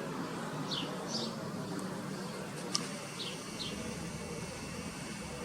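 Small birds chirping outdoors, a string of short, quick falling notes, a few a second, with one sharp tick near the middle, over a steady low background hum.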